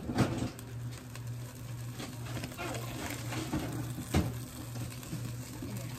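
Soft kitchen handling sounds as shredded cheese is sprinkled and patted onto a tortilla in a frying pan, with a sharp knock just after the start and another about four seconds in, over a steady low hum.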